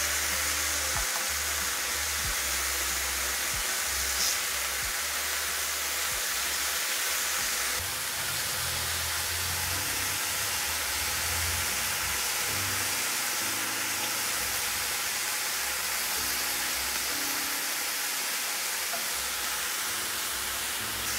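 Diced chicken breast searing in a very hot grill pan: a steady sizzle as the pieces are turned over, with a brief tap about four seconds in.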